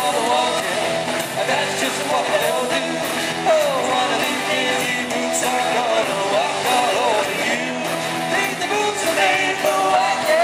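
Live rock band playing: electric guitars and drums on a steady beat, with a male lead vocal singing over them.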